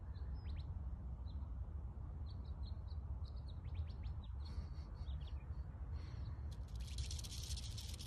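Western diamondback rattlesnake starting to rattle about six and a half seconds in, a dense, very fast high buzz, after a stretch of small birds chirping over a steady low rumble.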